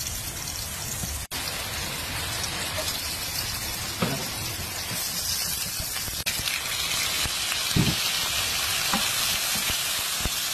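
Onion and garlic sizzling in hot oil in a nonstick frying pan, with a steady crackling hiss. A spatula knocks against the pan a few times as it stirs, in the second half.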